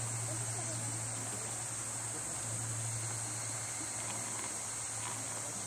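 Insects chirring in a steady high-pitched drone, with a steady low hum underneath.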